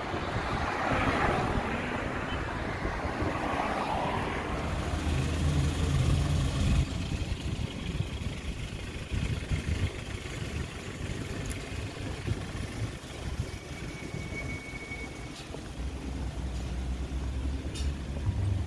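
Street traffic: cars driving past, with a car rushing by in the first few seconds, then engines humming low as more cars roll by. A low rumble of wind on the microphone runs underneath.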